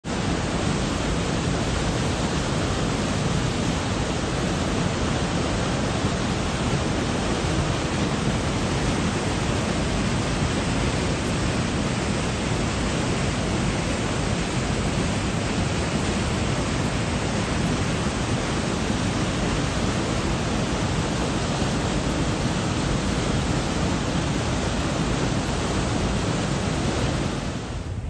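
Waterfall rushing over rocks, a loud, steady rush of water that drops in level shortly before the end.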